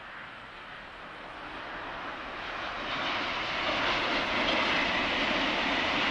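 TGV high-speed train passing at speed, a rushing noise of wheels and air that swells steadily over the first three or four seconds as it draws nearer, then holds loud.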